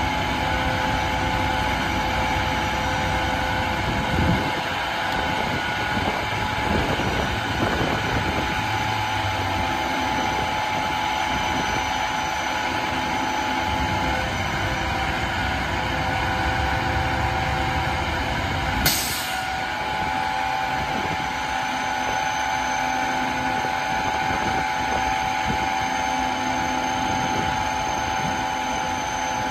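Bucket truck's MaxxForce 9 diesel running steadily to drive the Altec boom's hydraulics as the boom raises, a constant drone with a steady whine on top. A brief sharp hiss about nineteen seconds in.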